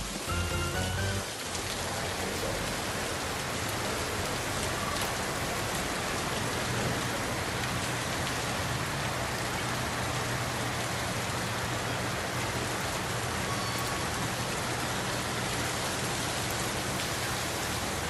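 Heavy rain pouring steadily. Background music fades out in the first second or so.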